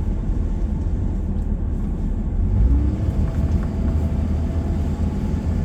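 Steady low rumble of a vehicle being driven, heard from inside the cab: engine and road noise.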